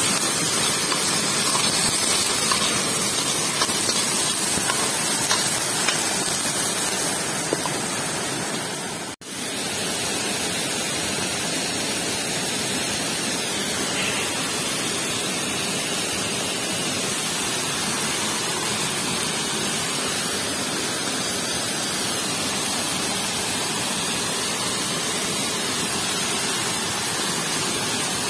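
Steady rushing of a forest stream and small waterfall, with a sharp break about nine seconds in.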